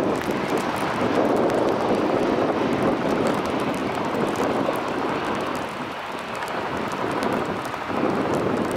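Steady noise of jet aircraft engines, an even rumble with no clear whine, dipping slightly a few seconds before the end and rising again near the end.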